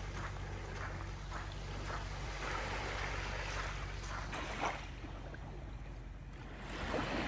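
Soft wash of water lapping over a low steady hum, with a few faint taps.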